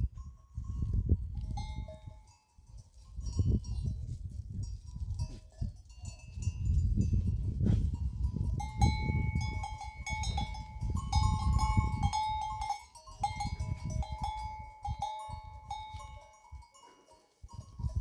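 Bells on a flock of goats and sheep clinking over and over, clearest in the second half, over a steady low rumble.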